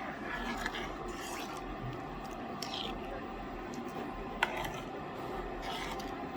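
Faint scraping and scratching of kitchen utensils and seasoning being handled at a cooking pot, with one sharp click about four seconds in, over a steady background hum.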